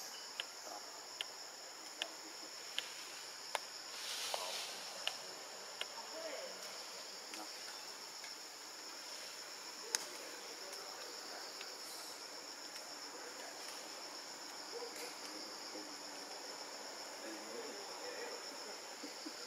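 Steady, high-pitched chorus of forest insects droning without a break. Over it come sharp clicks, about one every 0.8 seconds during the first six seconds, and one more about halfway through.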